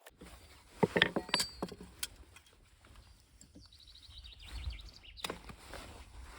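A cluster of sharp knocks and clicks about a second in, then a quick rattle of high ticks a little past the middle, over a steady low rumble.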